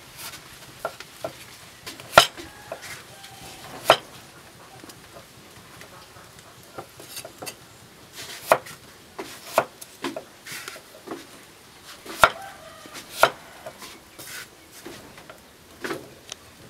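Cleaver chopping a peeled gourd on a wooden chopping board: irregular sharp knocks, a few louder strikes a second or so apart with quieter taps between.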